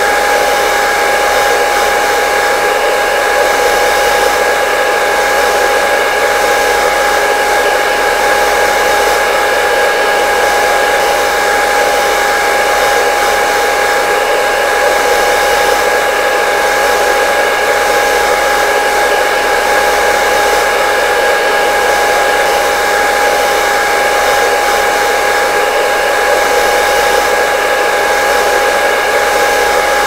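Hair dryer running steadily: an even rush of blown air with a steady whine and a fainter overtone above it.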